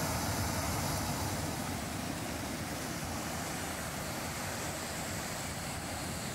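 Steady rushing of a waterfall, white water pouring over rocks close by.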